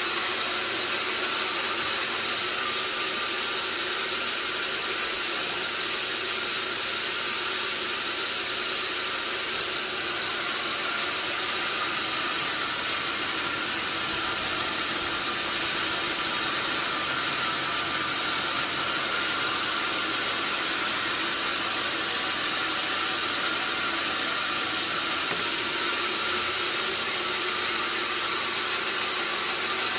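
Sawmill saw machinery running steadily, a constant high hiss with a few steady whining tones and no break or change.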